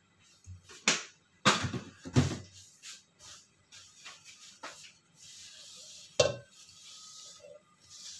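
A series of short knocks and clatters of kitchen items at the stove, about six spread over the first six seconds, then a steady faint hiss.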